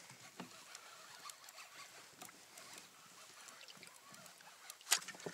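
Faint sounds of a kayak afloat on calm water, with scattered small knocks and one sharp click about five seconds in.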